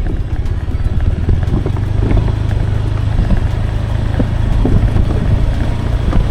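Motorbike running steadily under way, with wind rumbling on the microphone.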